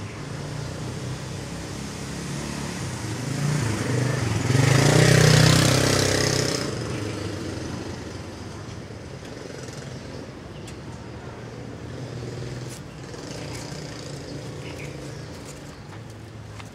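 A motor vehicle passing close by: the sound builds to a peak about five seconds in and fades away over the next two seconds, over a steady low traffic hum.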